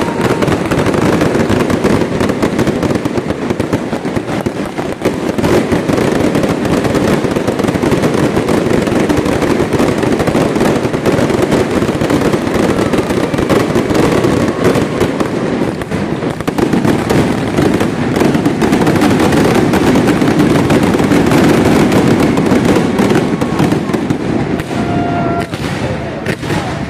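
Castillo fireworks display going off in a dense, continuous barrage of rapid bangs and crackling, with no break.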